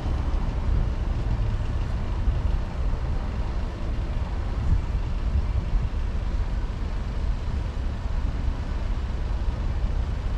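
Steady low rumble of a car, heard from inside the vehicle.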